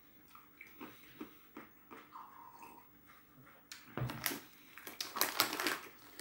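A mouthful of cheese-flavoured peanuts being chewed close to the microphone: soft crunching at first, with a run of louder crunches from about four seconds in.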